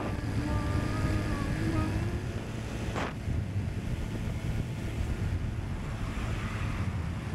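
Honda Super Cub's small single-cylinder four-stroke engine running at road speed, under heavy wind buffeting on the microphone. The engine's hum rises slightly in the first two seconds, and a brief rush of noise comes about three seconds in.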